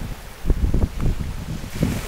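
Wind buffeting the microphone over rough sea, with waves washing onto a pebble beach; a hiss of surf on the stones swells near the end.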